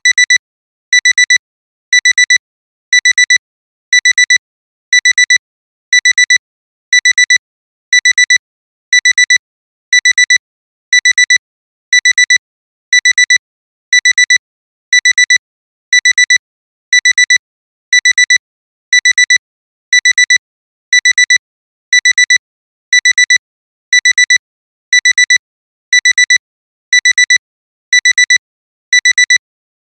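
Digital alarm-clock alarm beeping: high-pitched electronic beeps in quick groups of about four, repeated evenly once a second, signalling that the timer has run out.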